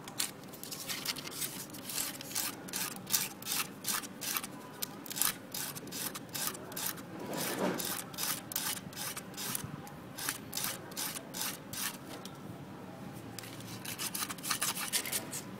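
A thin wooden chopstick tip being sanded by hand on a strip of sandpaper: a quick run of rasping back-and-forth strokes, about two to three a second, that stops for a moment about twelve seconds in and picks up again briefly near the end.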